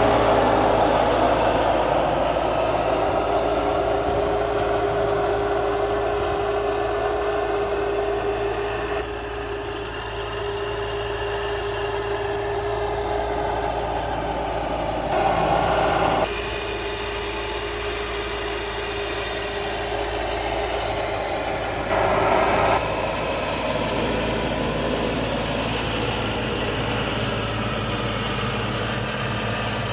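An engine running steadily at idle, with a brief louder surge about 15 seconds in and again about 22 seconds in.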